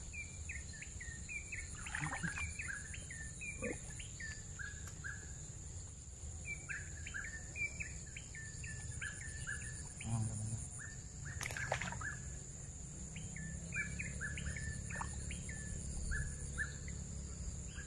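Small birds chirping in quick runs of short falling notes over a steady high insect drone. A couple of brief knocks come about halfway through.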